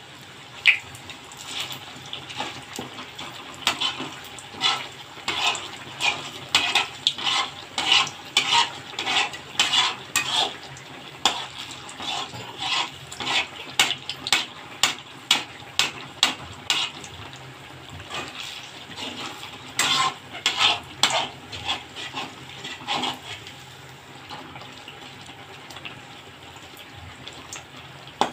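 Perforated metal spatula scraping and clinking against an aluminium karahi, about two strokes a second in two long runs that thin out near the end, over the steady sizzle of a tel pitha deep-frying in oil.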